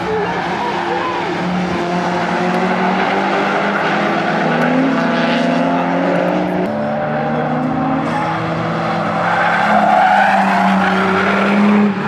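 Cars lapping a race circuit: engines running under load, their pitch dropping at a gear change about halfway through and climbing again, with tyres squealing through the corners. It is loudest near the end.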